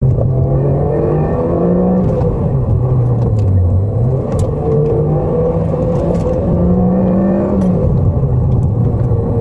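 Toyota MR2's mid-mounted four-cylinder engine heard from inside the cabin under acceleration, its pitch rising and dropping back several times as it is driven through the gears.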